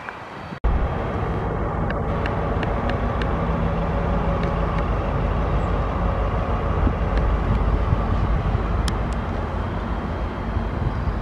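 Red Railion diesel-hydraulic shunting locomotive passing close by, its engine running with a steady low rumble. The sound starts abruptly about half a second in, and a few light clicks sound over it.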